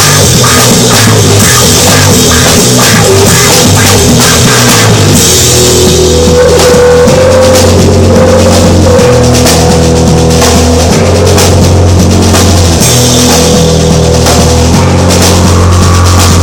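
Very loud rock music with a drum kit and electric guitar: dense drumming for about the first five seconds, then held bass notes and a sustained guitar tone over the beat.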